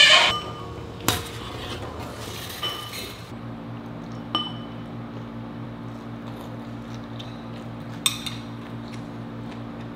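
Chopsticks clinking now and then against porcelain plates and bowls while people eat. A steady low hum starts about three seconds in.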